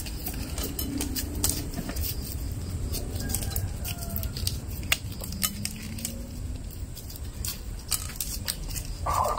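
Mentos roll wrappers crinkling and clicking as they are torn open by hand, over a steady low rumble, with a few short animal calls in the background.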